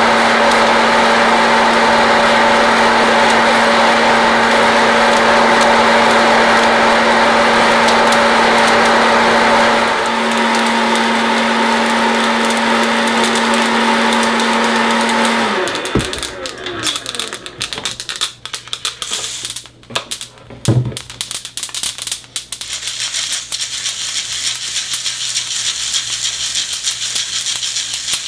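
Hot-air popcorn popper running with a steady hum as its fan tumbles dark-roasted coffee beans, then switched off about halfway through, its motor winding down with a falling pitch. After that come irregular clicks and rattles of roasted coffee beans in a metal mesh strainer being stirred with a wooden spoon to cool, with one louder knock.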